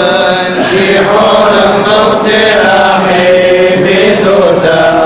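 Liturgical chant sung by several voices over a steady low held note, the slow melody moving from one long note to the next.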